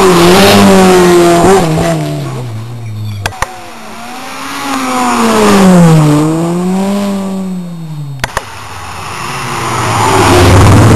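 Rally cars passing at speed one after another: first a Mk2 Ford Escort, then a second car, then a Subaru Impreza arriving near the end. Each engine note swells as the car nears, its pitch rising and dipping with gear changes and lifts off the throttle. Two short sharp cracks come between the passes.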